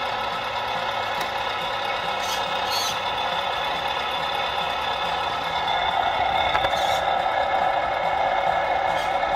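Sound module of a radio-controlled Scania R770 scale truck playing a diesel truck engine idling through its speaker, steady and a little louder from about six seconds in, with a few faint clicks.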